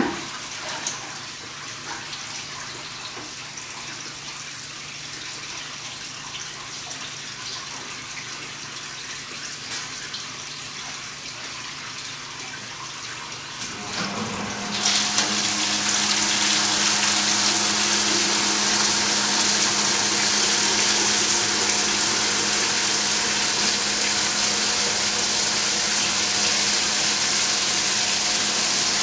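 Flood coolant pump on a CNC mill switching on about halfway through, its hum joined by steady streams from three 1/2" Loc-Line coolant hoses pouring into a plastic bucket for a timed flow test; before that, a fainter steady trickle of liquid.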